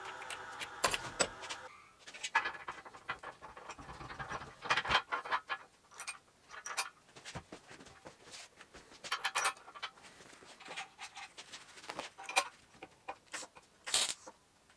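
Steel pins and a spring-ring lynch pin being handled and fitted, with irregular metal clicks, clinks and scrapes throughout. A steady hum stops about two seconds in, and a short harsh burst of grinding comes near the end.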